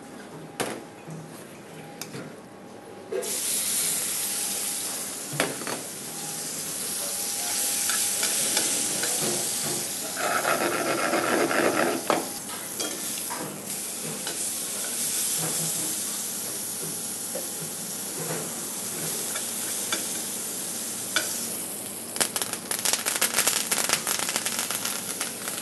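Herbs and aromatics frying in hot oil in a frying pan: a loud, even sizzle that starts suddenly about three seconds in. Near the end they are stirred in the pan, with rapid clicking.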